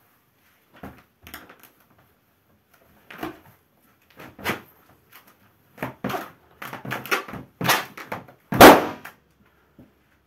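Bare feet stomping on a large balloon: a run of irregular thuds that grows louder, then the balloon bursts with a loud bang near the end.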